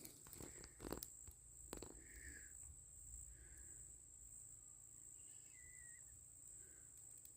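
Faint, steady, high-pitched drone of insects, likely crickets, in the woods. A few light clicks come in the first two seconds.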